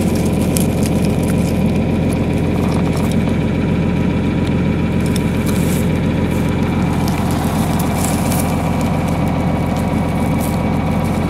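Tractor engine idling steadily, with faint scattered crackles of dry corn stubble and soil being scraped aside by hand.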